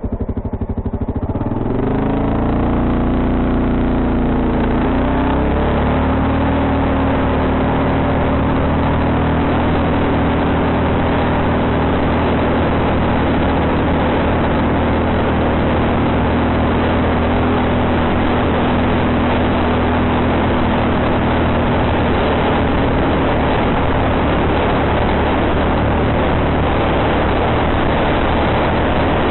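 Quad bike (ATV) engine picking up speed over the first few seconds, then running at a steady cruising pace, with a constant hiss over it.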